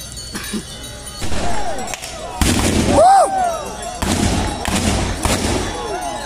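Several sharp shots from traditional black-powder guns fired by Naga warrior dancers, from about halfway through, mixed with loud rising-and-falling whooping war cries. The cries are loudest around the middle.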